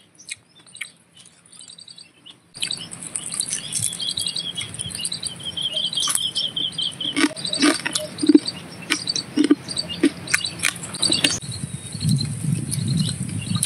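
After a quiet start, small birds chirp repeatedly over a steady high insect drone. Scattered sharp clicks and crunches run through it as grilled fish is bitten off a skewer.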